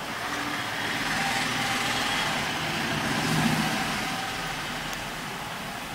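A motor vehicle's engine running, its noise swelling to a peak about three and a half seconds in and then fading.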